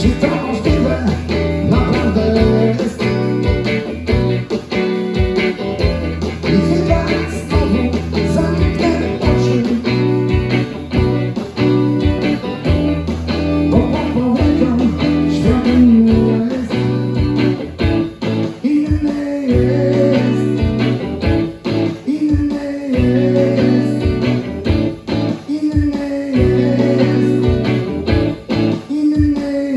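Two electric guitars playing live through the stage amplification, a bluesy rock tune with sustained low notes under the strummed and picked parts.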